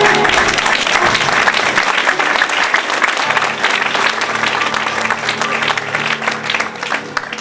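Theatre audience applauding over a soft held chord of the accompaniment. The applause dies away near the end.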